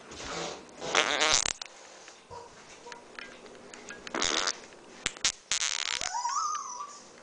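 A child's voice making loud, strained cries in short bursts, the first about a second in, ending in a high rising whine near the end: the mock cry of a constipated person straining.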